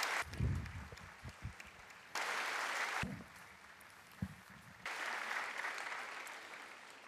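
Large crowd applauding in two spells: the first lasts about a second and cuts off abruptly, the second lasts about two seconds and fades away. A few low thumps sound in the first second.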